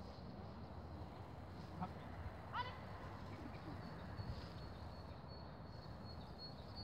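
Quiet open-air ambience with one short, high, rising call about two and a half seconds in.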